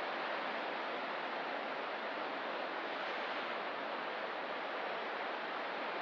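Ocean surf heard as a steady, even wash of noise with no separate breaking waves standing out.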